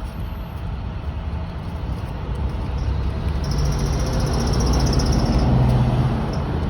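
Road vehicle rumble that swells, loudest about five seconds in, then eases off, with a high thin whine while it is loudest.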